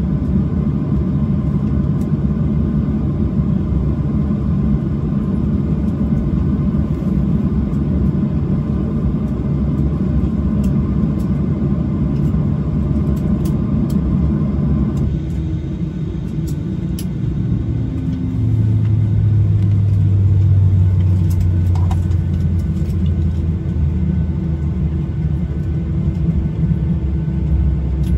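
Cabin noise of a Boeing 737-800 with CFM56 engines, taxiing slowly to a stop at the gate: a steady rumble from the engines at idle. About halfway through the higher part of the noise drops away as the aircraft stops, leaving a lower steady hum.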